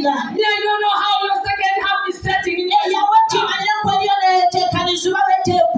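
A woman singing through a microphone, drawing out long notes in a slow chant-like line.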